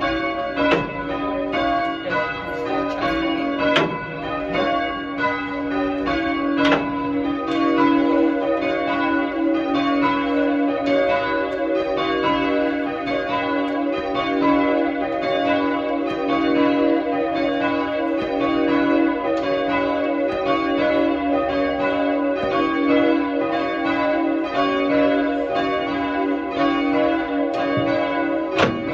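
Ring of three church bells, tenor 6-0-6 in B, rung full circle in change ringing: a steady, even run of strokes with the notes overlapping as they ring on. A few sharp knocks stand out over the bells.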